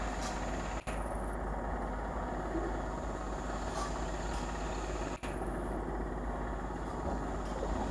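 Eastern Railway BEML electric multiple unit train approaching along the track, running with a steady rumble. The sound breaks off for an instant twice, about a second in and again about five seconds in.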